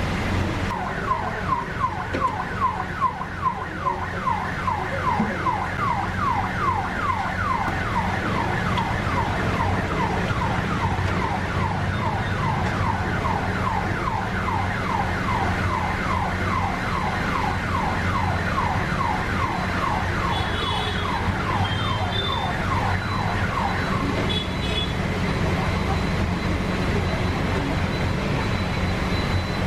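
A siren wailing in quick, repeated falling sweeps, about four a second, over a steady low hum. The sweeps stop about 24 seconds in.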